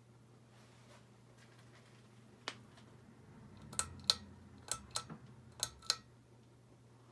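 Sharp switch clicks from a Hunter Low Profile II ceiling fan: one click, then three quick pairs of clicks, over a steady low hum.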